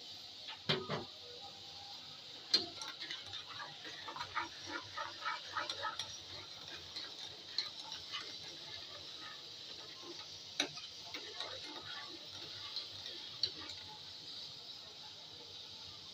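Wire whisk stirring milk and sugar in a stainless steel saucepan, its wires ticking and clicking against the metal pan: a few sharp clicks and a quick run of light ticks a few seconds in, over a steady hiss.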